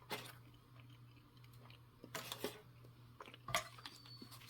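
Quiet chewing of a dry mouthful of beef and rice, with a few brief soft clicks and rustles of handling, over a low steady hum.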